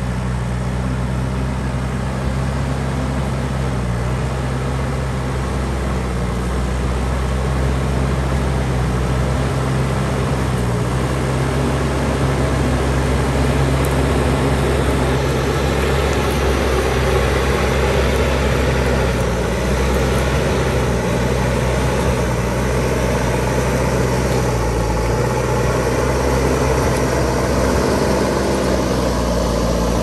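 JCB backhoe loader's diesel engine running steadily under load while its front loader bucket pushes and grades loose soil and stones. A rough scraping of dirt and gravel grows louder after the first several seconds.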